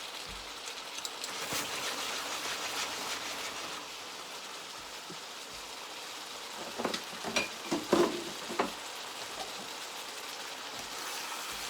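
Chicken strips and sliced peppers sizzling steadily in oil in a frying pan. A brief cluster of sharp knocks about seven to nine seconds in.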